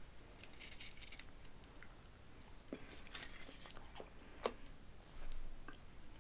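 Faint chewing and wet mouth clicks from eating soft, melty pumpkin spice Hershey's Kisses, with scattered small ticks and one sharper click about four and a half seconds in.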